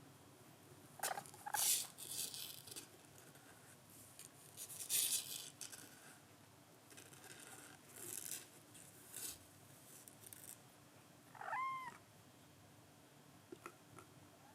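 A kitten making short breathy bursts of noise, with two tiny squeaks about a second in and one short, high mew that rises and then levels off near the end.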